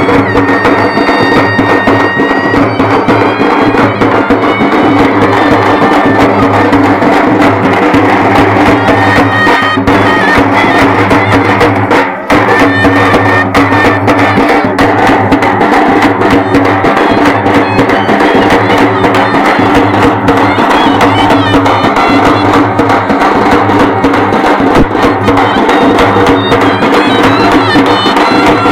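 Loud traditional music: a reedy wind instrument playing a melody over a steady drone, with continuous rhythmic drumming and sharp percussive strikes.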